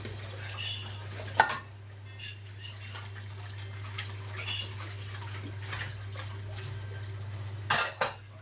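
Clinks of tableware over a steady low hum: one sharp clink about a second and a half in, and a louder clatter of several hits near the end.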